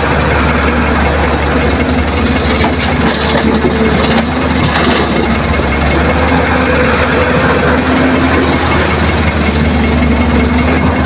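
Heavy diesel engines of an excavator and a dump truck running steadily at a constant pitch, with a few light clatters about two to five seconds in.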